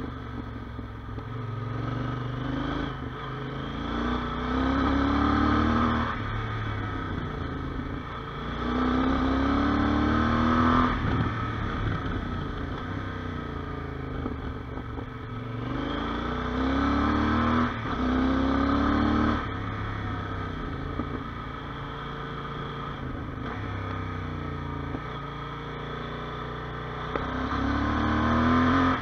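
Yamaha Super Ténéré's 1200 cc parallel-twin engine through a Mivv aftermarket exhaust, heard from on the bike while riding. It makes about five throttle pulls whose note rises in pitch and louder, each cut off sharply as the throttle closes, with quieter running between them.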